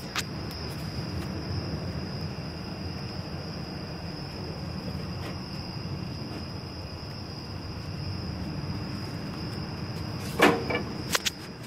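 Outdoor night ambience: a steady low rumble with a constant high-pitched tone. Near the end comes a brief rustling knock, then a couple of small clicks, which sounds like the phone being handled.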